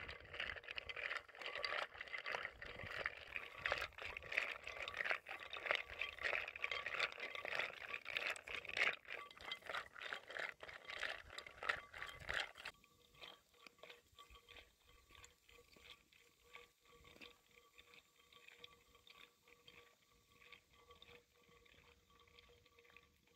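Raw onion being cut by hand with a small knife over a metal bowl: a quick run of crisp crunching cuts. About 13 s in it drops off sharply to faint scattered ticks.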